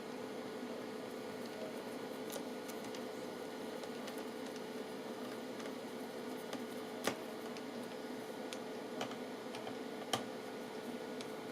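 Small clicks and taps of a screwdriver and screws as a laptop's cooling-system screws are tightened, with two sharper clicks about halfway through and near the end, over a steady hum.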